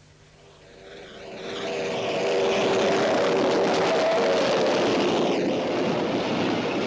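Loud, steady machine or engine noise that swells up from near quiet over the first two seconds and holds, with several droning tones under a broad rush.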